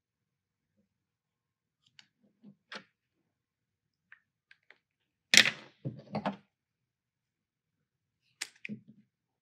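Small clicks and clatter of hand tools being handled on a hard plastic surface: a pen and an anvil-and-blade cutter picked up and set down. About halfway through comes one sharp knock with a short rattle, and a few more clicks near the end.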